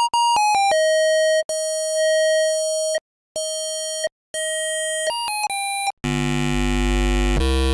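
Synth tone built from a single-cycle sine wave in a software sampler, sent through distortion and a wave shaper. It plays a run of short and held notes, rich in overtones as the waveform is reshaped. About six seconds in it changes to a loud, low, buzzy tone.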